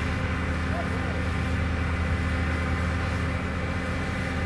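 A large engine running steadily: a constant low hum with a hiss over it, unchanging in pitch and level.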